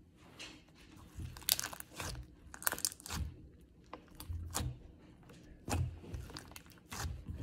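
Translucent pink slime being stretched, pressed and folded by hand, giving off irregular crackles and pops as air pockets in it burst.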